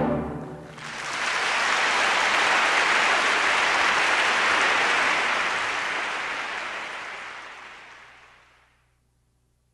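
The orchestra's final chord cuts off and rings briefly in the hall, then a concert audience applauds, the applause fading away near the end.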